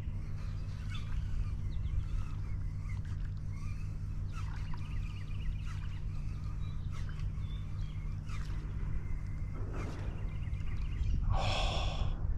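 Birds chirping and calling over a steady low hum, with a short loud rushing noise about a second before the end.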